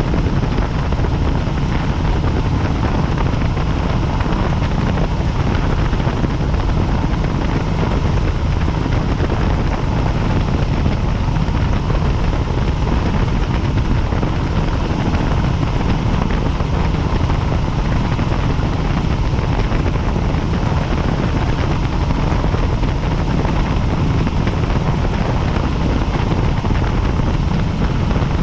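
Helicopter running steadily: a constant loud drone of rotor and engine, with a faint steady whine above it.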